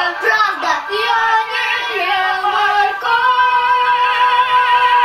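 A girl singing in mock-opera style: short sung phrases, then one long high note held with vibrato from about three seconds in.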